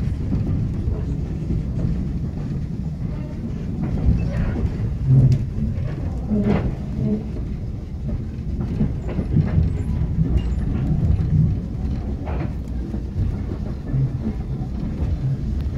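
Steam-hauled railway carriage rolling along the track, heard from on board: a steady low rumble with a few short clanks and knocks.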